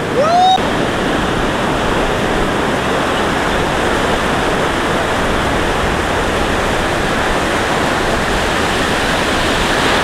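Steady rushing wash of breaking surf and whitewater. In the first half-second there is a short rising whoop.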